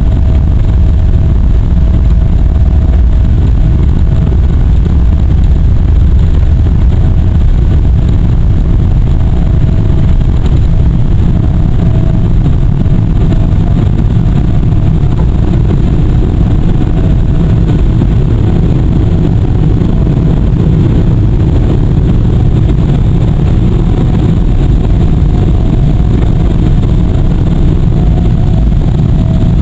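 Boeing 777-300 jet engines at takeoff power, heard inside the cabin: a loud, steady roar with a steady whine over it, the low rumble of the wheels on the runway giving way as the plane lifts off partway through.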